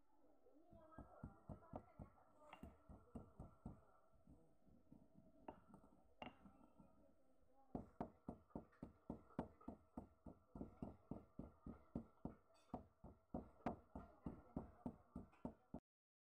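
Stone pestle pounding in a stone mortar, in rhythmic knocks of about three strokes a second. The pounding runs for a few seconds, pauses, then resumes about halfway through and keeps an even beat until it stops just before the end.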